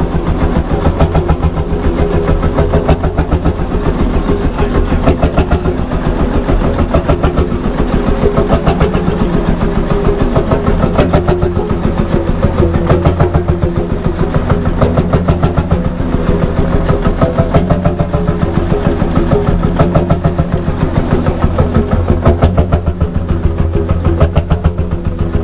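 HSCS G 35 'Le Robuste' tractor's single-cylinder hot-bulb engine running steadily, with an even beat of exhaust pulses.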